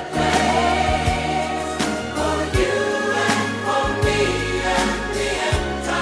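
Background music: a choir singing sustained lines over a steady beat.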